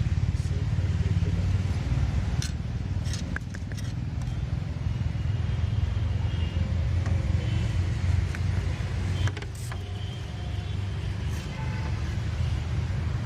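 Car engine idling steadily, a low even rumble, with a few sharp clicks in the first third and again near the end.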